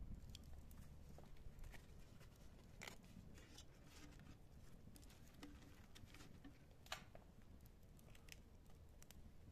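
Near silence with faint, scattered crackles and rustles.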